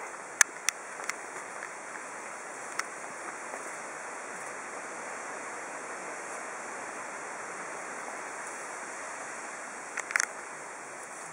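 Steady rushing background noise of the forest, with no pitch to it. A few sharp clicks stand out in the first three seconds, and a short cluster of clicks comes near the end.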